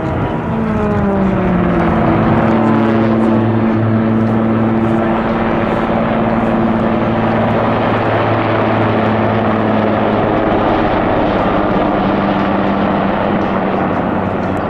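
A Pilatus PC-21 turboprop passing close, its propeller and engine tone falling steeply in pitch over the first second or so. Then comes the steady, loud drone of a Super Puma helicopter's turbines and rotor.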